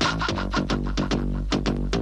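Upbeat Indian film dance song playing, an instrumental stretch: a fast, even beat of about five to six strokes a second over a steady bass note, with guitar.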